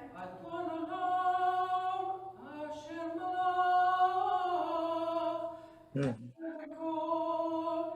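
One voice singing a slow liturgical melody in long held notes through a microphone, breaking off briefly about six seconds in before singing on.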